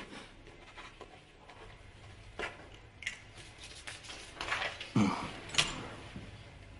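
Faint scratching of a pen writing on paper, with a few soft rustles of the paper; the strongest strokes come about four to six seconds in.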